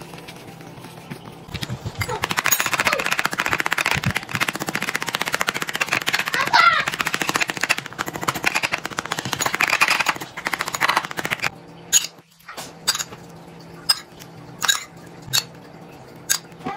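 A fork rapidly pricking pizza dough on a metal pizza pan, its tines tapping through to the pan in a fast, continuous run of clicks for about ten seconds. After the pricking stops, a handful of separate sharp clicks follow.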